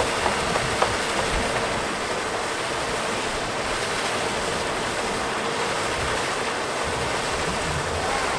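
Sea surf washing in with strong wind buffeting the microphone: a steady rushing noise, with a few small clicks in the first second.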